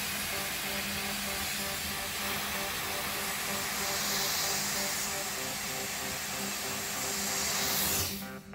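Vapor Rino dry vapor steam cleaner blowing steam through its large floor brush into carpet: a steady hiss that cuts off abruptly near the end.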